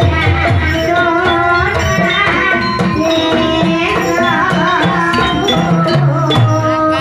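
Live Javanese gamelan music accompanying a kuda lumping (ebeg) dance: hand-drum strokes over held metallophone tones, with a wavering melody line running above them.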